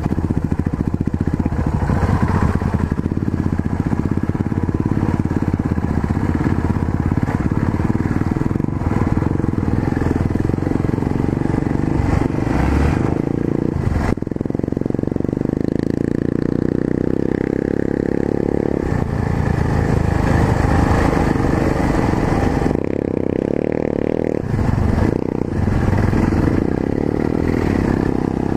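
Yamaha XT 660Z Ténéré's single-cylinder four-stroke engine running as the motorcycle is ridden, its note shifting a few times with the throttle, around halfway and again near the end.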